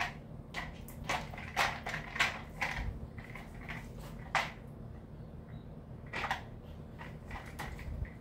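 Plastic clicks and clacks from the pressure washer's swivelling brush attachment being handled and fitted back onto the lance: several short clatters in the first few seconds and one more about six seconds in.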